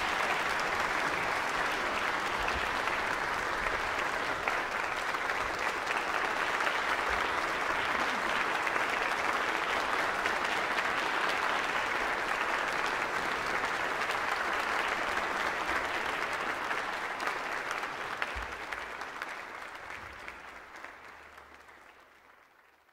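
Concert audience applauding: steady, dense clapping that fades away over the last several seconds.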